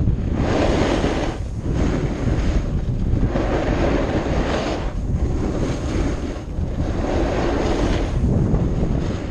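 Strong wind buffeting the camera microphone: a steady low rumble with rushing surges every second or two.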